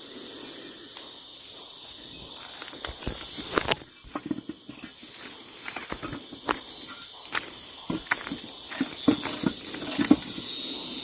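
Night-time chorus of crickets and other insects, a steady high-pitched drone. From about four seconds in, scattered sharp crackles and pops sound over it.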